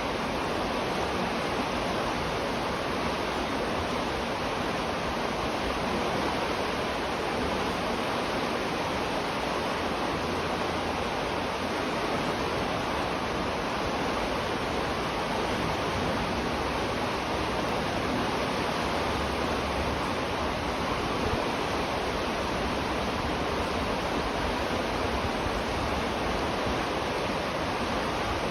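River water flowing, a steady, unbroken rushing with no changes or separate events.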